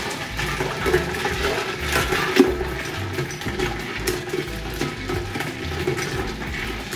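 A long spoon stirring ice and watermelon agua fresca in a large glass jar: liquid sloshing and swirling, with ice cubes knocking against the glass, the sharpest clink about two and a half seconds in.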